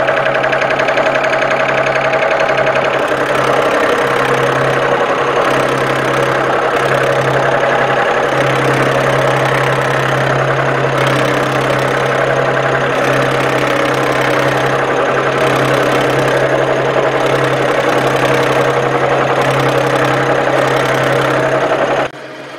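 Milling machine running, its cutter face-milling the edge of a sawn-off, weld-repaired machine-vise body, a steady loud machining sound with a constant low hum. It cuts off suddenly about a second before the end.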